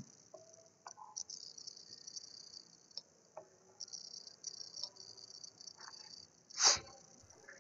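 Faint, high-pitched chirring that swells in patches, with a few soft clicks and one short noisy burst about two-thirds of the way through.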